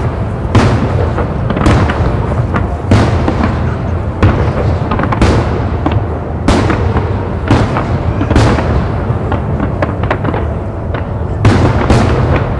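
Large aerial fireworks display: shells bursting in loud bangs about once a second over a continuous crackle and low rumble. The bangs thin out briefly, then come in a quick cluster near the end.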